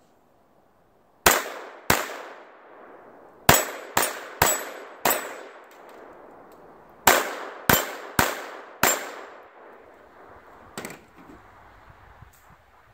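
.22 rimfire pistol firing eleven shots in quick groups (two, four, four, then a single fainter one), each shot followed by a short metallic clang from steel targets being hit.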